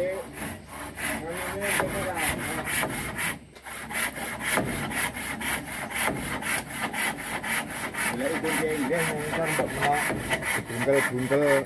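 Handsaw cutting through a wooden roof rafter, in quick, even back-and-forth strokes.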